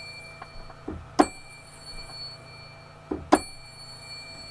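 Triangle struck twice, about two seconds apart, each strike ringing on with a bright, high, slowly fading tone.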